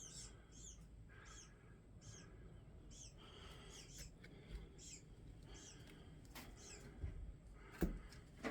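Nesting birds in a bell tower giving repeated short, high chirps, each sliding down in pitch, about two or three a second. A single sharp knock sounds near the end.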